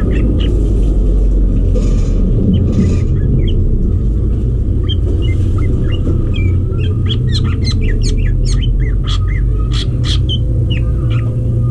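Green leafbirds (cucak ijo) giving quick, short chirps and whistles, coming thickest after the middle, over a steady low rumble.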